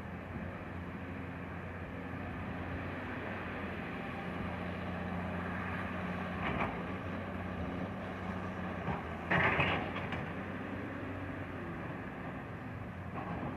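Diesel engine of heavy earthmoving equipment running steadily, with two brief louder bursts of noise, one about six and a half seconds in and a stronger one about nine and a half seconds in.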